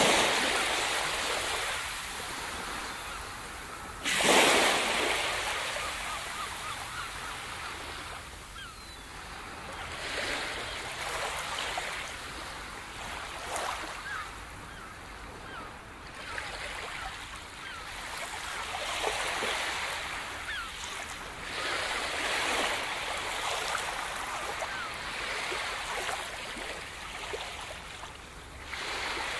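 Ocean surf washing in and out, each wave swelling and fading over a few seconds; the loudest waves break right at the start and about four seconds in.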